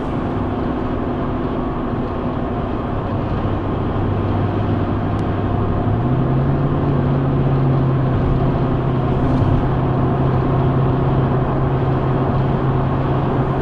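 Steady engine hum and tyre and road noise inside a pickup truck's cab cruising at highway speed. The engine's low note steps up in pitch about six seconds in, then holds steady.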